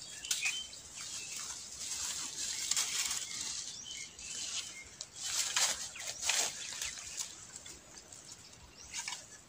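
Dry grass and fallen bamboo leaves rustling and crackling in irregular swishes as a long knife is pushed and swept through the undergrowth, loudest a little past the middle.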